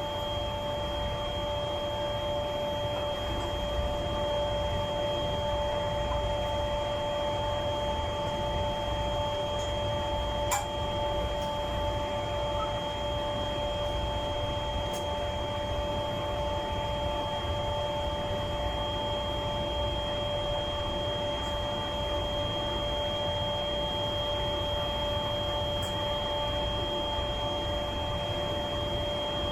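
Steady hum and whine of running power-plant machinery, with several high steady tones over a constant noise, and a faint click about ten seconds in.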